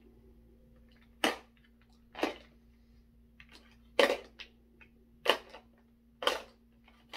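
Hard plastic clacks as fishing floats are set back into the compartments of a plastic tackle box: six sharp clacks, roughly one a second.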